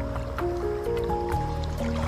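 Background music: held notes moving step by step over a steady bass, with faint running water underneath.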